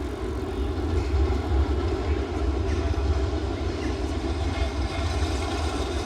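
A heavy vehicle running close by: a steady, loud low rumble.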